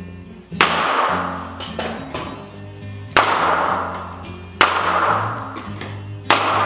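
Pneumatic 15-gauge angled finish nailer firing four times, driving 2-inch nails into an MDF window stool; each shot is a sharp crack with a short ringing tail, the first about half a second in and the last just past six seconds. Background music with a steady bass line plays underneath.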